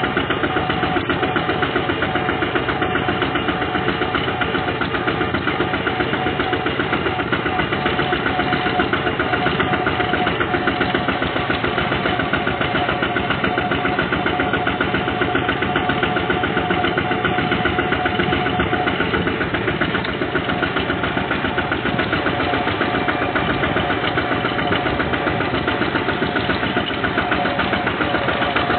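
Single-cylinder diesel engine of a two-wheel walking tractor running steadily under way, a fast, even chugging that keeps the same pace throughout.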